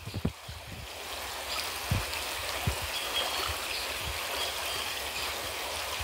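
Small woodland stream trickling and babbling over stones and a fallen log in a steady wash of water sound, with a couple of soft low bumps about two seconds in.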